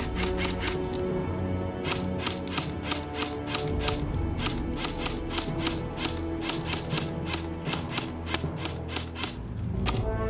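Airsoft AK47 electric gun with a metal gearbox firing on semi-auto: sharp single shots, about three a second, with a short pause about a second in. Music plays underneath.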